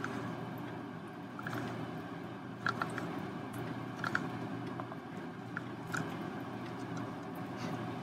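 Steady low background hum with a few small, sharp clicks and clinks scattered through it, from a metal ball chain being handled.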